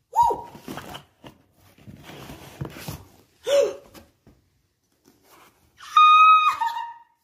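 Cardboard box being opened and handled, with short bursts of rustling and scraping and two brief wordless exclamations from a woman. About six seconds in she lets out a loud, high-pitched squeal of excitement that drops in pitch at the end.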